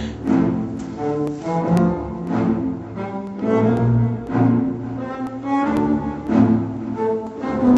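Music: a slow melody played on low bowed strings, cello-like, with one sustained note following another.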